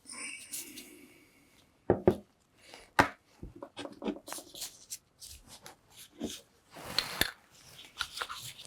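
Metal parts of a cordless impact wrench's gearbox being handled and set down: irregular sharp knocks and clinks, three of them louder, with a brief metallic ring at the start.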